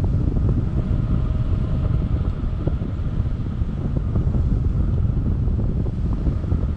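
Wind buffeting the microphone of a camera on an open paramotor trike in flight: a loud, ragged low rumble, with a faint steady hum underneath.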